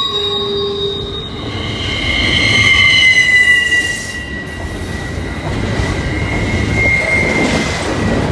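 Double-stack intermodal container cars rolling past with their wheels squealing on a curve: several high, drawn-out tones that slide slowly down in pitch, over the steady rumble of the train.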